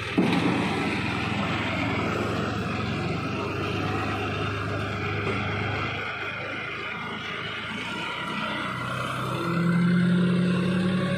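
John Deere 5310 tractor's three-cylinder diesel engine running as it pushes a front-loader grapple into a pile and lifts. There is a brief knock right at the start, and the engine revs up and grows louder about nine seconds in.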